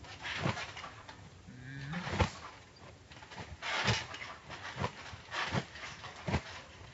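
Trampoline mat and springs taking children's landings, a series of about six dull thumps slowed down by slow-motion playback. A deep, drawn-out slowed voice sounds briefly just before the loudest thump, about two seconds in.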